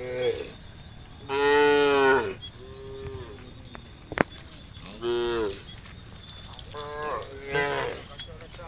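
Cattle mooing: a string of separate moos from the herd, the loudest and longest about a second and a half in. There is a single sharp click a little past the middle.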